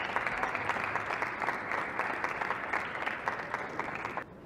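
Arena audience applauding a point just won, a steady dense patter of clapping that cuts off abruptly near the end.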